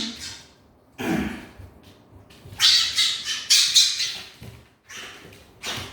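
Fennec fox making harsh squawking calls in several bursts: one about a second in, a longer run of them in the middle, and a short one near the end.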